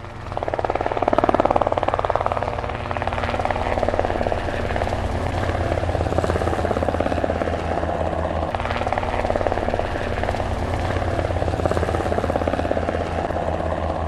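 A steady mechanical drone with a fast, even low pulsing, which swells up quickly out of silence at the start and then runs on at an even level.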